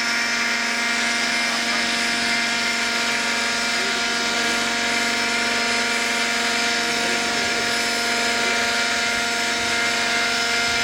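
Radio-controlled scale model Eurocopter Tiger helicopter hovering, its motor and rotors giving a loud, steady whine with several held tones over a hiss.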